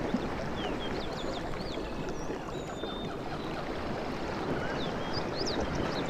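Sea waves washing on a beach in a steady, dense wash that swells slightly near the end, with many short high-pitched chirps over it.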